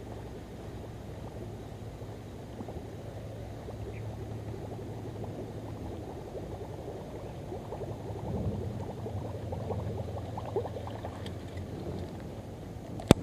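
Faint sloshing and rustling of water among reeds over a steady low hum, busier in the middle. A single sharp click comes near the end.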